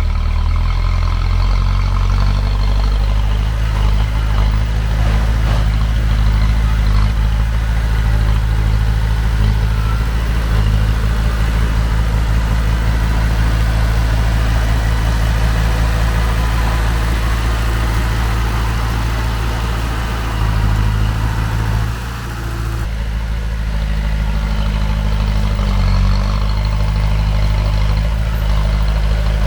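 Heavy diesel engine of construction machinery running steadily, with a brief dip in loudness about 22 seconds in.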